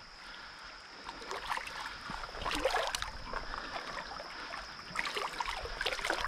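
Irregular splashing and trickling of water, in scattered bursts that are busiest near the middle and toward the end. A steady high insect drone runs behind it.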